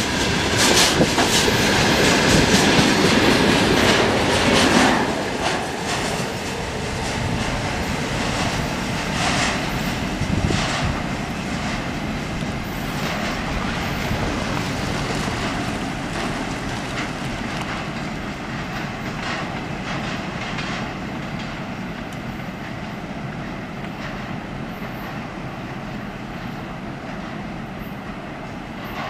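Freight train wagons rolling past, wheels clacking over the rail joints. Loudest for about the first five seconds, then fading steadily as the train moves away.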